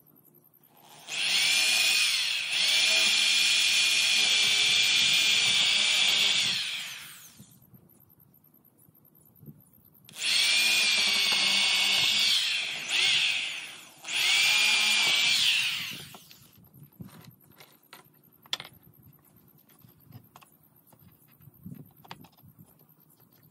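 Corded electric drill boring into pine boards, running at a steady pitch in two long runs of about six seconds each, the second briefly let off and squeezed again partway. After it stops, a few light clicks and a small knock of handling.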